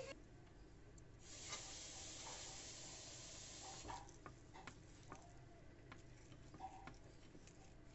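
Faint hiss of kubba frying in hot oil, then a few light clicks of a knife against a ceramic plate as a fried kubba is cut.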